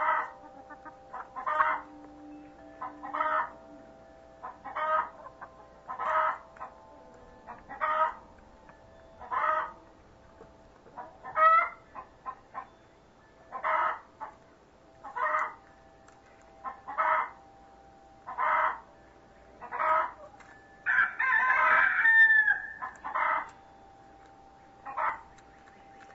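Chicken calling over and over, a short call about every one and a half seconds, with a longer, louder stretch of calling about three-quarters of the way through.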